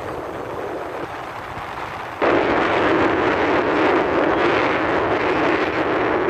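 Rushing wind and road noise from a moving scooter, jumping suddenly louder about two seconds in and staying loud.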